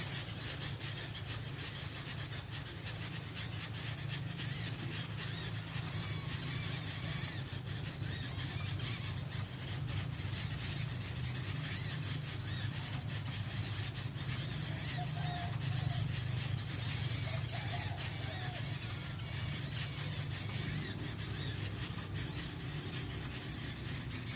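Small birds chirping and twittering: many quick, high-pitched chirps repeated and overlapping, over a steady low hum.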